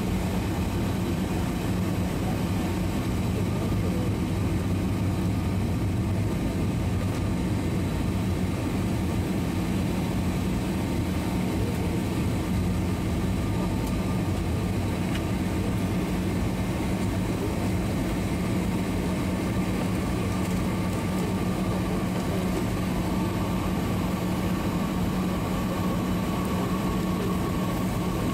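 Steady engine and airflow noise of an airliner on its landing approach, heard inside the passenger cabin: an even rush with a low hum underneath.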